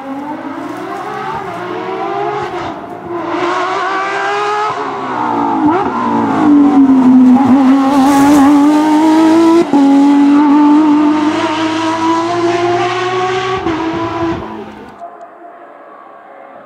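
Porsche 911 GT3 rally car's naturally aspirated flat-six revving hard as it approaches and passes, its pitch climbing and dropping with each gear change, with a sharp break at a shift near the middle. Near the end the sound drops abruptly to a much fainter engine note.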